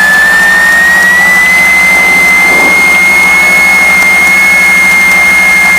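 Piper Seneca's right engine being cranked by its electric starter: a loud whine that rises in pitch over the first two seconds and then holds steady, over a low drone. The engine is spinning on the starter without catching.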